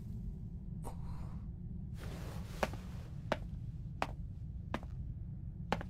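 Footsteps on a hard floor: six sharp steps at a slow, uneven walking pace over a steady low rumble of room ambience.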